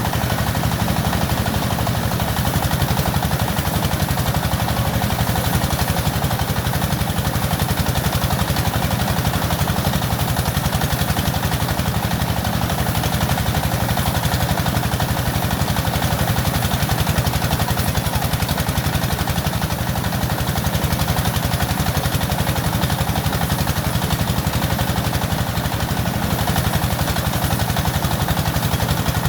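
Small engine running steadily with a fast, even beat that does not change.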